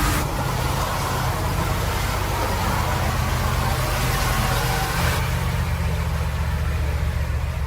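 Heavy off-road truck engine running steadily under load, with a hiss over it that drops off about five seconds in.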